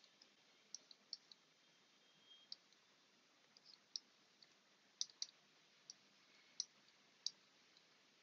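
Faint, irregular clicks of a stylus tip tapping on a pen tablet as numbers are handwritten, about two a second, over low room hiss.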